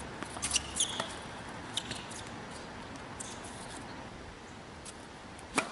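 Tennis shoes squeaking briefly on a hard court, with a few sharp knocks of the tennis ball off racket and court, and one louder knock near the end.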